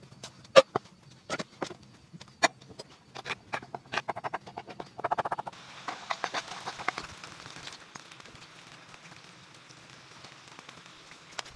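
Kitchen knife knocking on a wooden cutting board as garlic is chopped, with a quick run of chops about three to four seconds in. Then the minced garlic is scraped off the board into a small steel bowl and stirred in with a wooden spoon, which is fainter.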